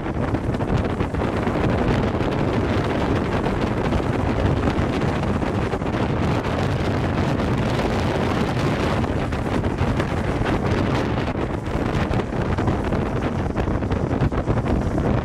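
Steady wind rushing over the microphone at speed, mixed with the road noise of the follow car.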